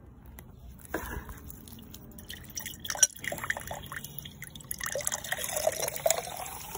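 Water from a garden hose running into a clear plastic jar, splashing and trickling, with a few handling clicks; over the last two seconds a tone in the water sound rises in pitch.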